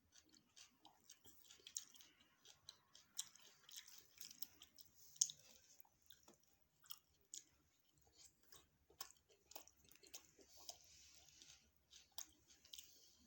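Close-miked chewing of food, soft and irregular, with many sharp wet mouth clicks and small crunches; the loudest click comes about five seconds in.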